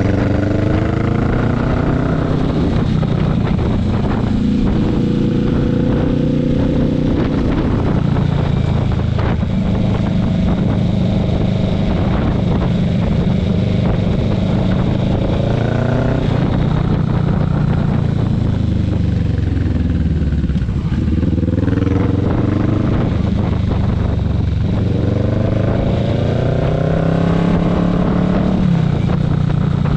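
Motorcycle engine running on the move, its pitch climbing as it pulls up through the revs near the start and again near the end, and dropping away for a few seconds in the middle as the throttle is eased off.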